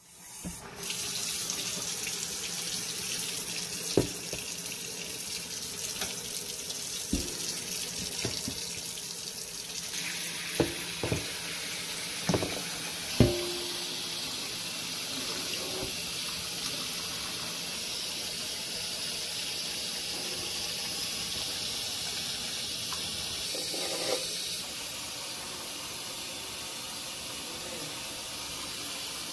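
Kitchen faucet running into a stainless steel sink, filling it with warm water to soak potted plants. Several sharp knocks in the first half as plastic plant pots are handled in the sink, and the rush of water eases slightly near the end.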